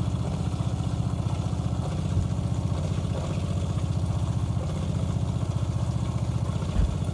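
Campervan 12-volt diaphragm water pump running with a fast, even pulsing, pumping the freshly plumbed water system up to pressure for a leak test. A brief thump near the end.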